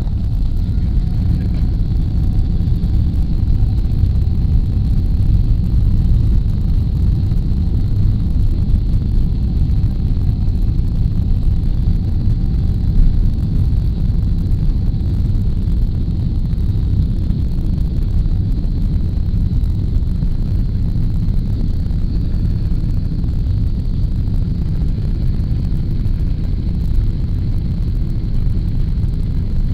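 Cabin noise of a Boeing 777-200 taxiing on the ground: a steady low rumble from the engines and rolling gear, with a faint steady high whine over it.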